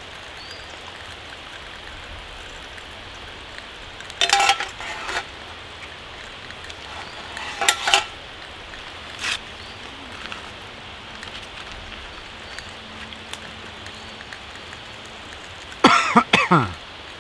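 Steady hiss of an outdoor cooking camp, with a few short clinks and knocks of metal cook pots and utensils about four and eight seconds in. Near the end there is a longer burst of rustling and clatter as a minestrone soup packet is handled over the pot.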